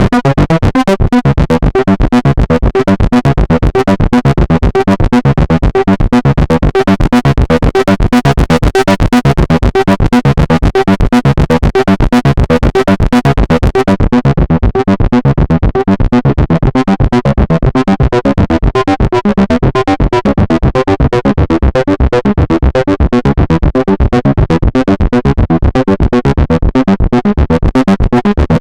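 Behringer Model D analog monosynth playing a fast, punchy sequence of short repeated notes. The brightest highs drop away about halfway through.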